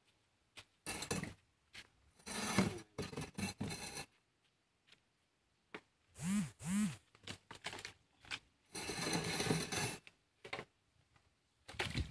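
Irregular bursts of scraping and rubbing from a steel wheelbarrow and hand tools being worked over concrete and mud, with two short squeaky rising-and-falling tones about six seconds in.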